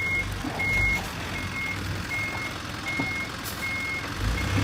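Truck's reversing alarm beeping at an even rate, a single high tone about four times every three seconds, over a low engine rumble.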